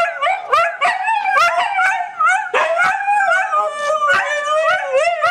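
Huskies howling, a run of short wavering calls that rise and fall in pitch with brief breaks between them.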